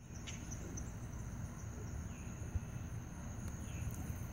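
Crickets trilling steadily in a high, unbroken chorus over a low steady rumble on the microphone, with a brief bump about two and a half seconds in.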